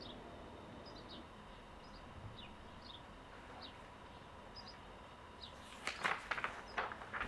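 A small bird chirping over and over, short high falling chirps about once or twice a second, over faint background hiss. Near the end comes a quick run of loud clicks and knocks, the loudest sounds here.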